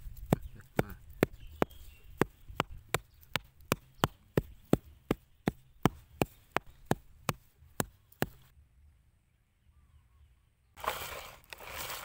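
A small hand hoe's metal blade chopping into packed dirt, a steady run of sharp strikes about two or three a second for some eight seconds, then stopping. A burst of rustling follows near the end.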